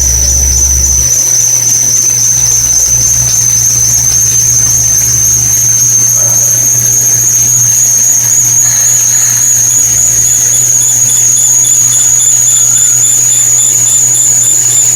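CNC machining centre milling a stainless steel part: a loud, steady, high-pitched whine that climbs slowly in pitch, with a faint pulsing in it, over a low machine hum.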